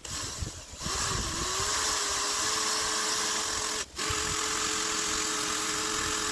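Electric drill running at a steady speed. The trigger is let go briefly about four seconds in, then it runs again.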